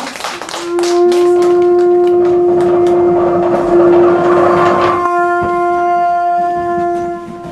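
A horn blown in one long, steady note that grows richer about five seconds in, over hand clapping that dies away during the first few seconds.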